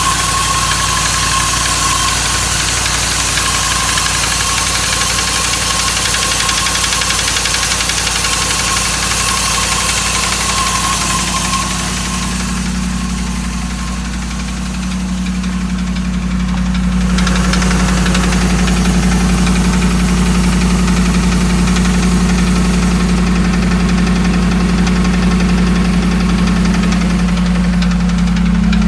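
Dodge Ram 1500's 5.7-litre Hemi V8 running with a knocking noise, which five mechanics could not identify and take as a sign that the engine needs replacing. About halfway through it dips briefly, then comes back louder with a steady low hum.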